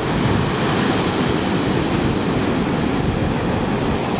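Big ocean waves breaking, a steady wash of surf noise.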